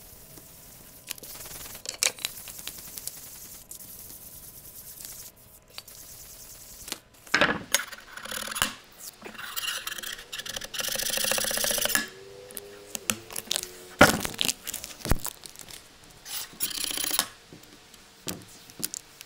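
A sanding block with fine-grit sandpaper rubbing back and forth over a wooden cutting board. About seven seconds in it gives way to a utility-knife blade scraping a paper label off a hardwood butcher-block top: louder, uneven scraping strokes, some chattering, with a few sharp taps.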